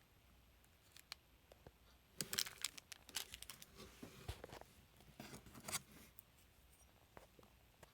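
Packaging being handled, a crinkling and tearing of wrapping in two spells, from about two seconds in and again around five to six seconds, with a few light clicks before.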